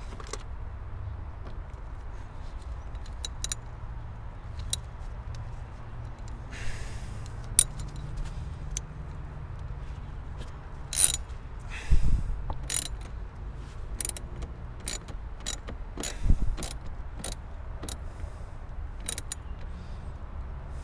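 A long-shafted hand tool working the hose clamp on the engine's intake pipe: a run of sharp, irregular metal clicks with a few louder knocks, over a faint low rumble.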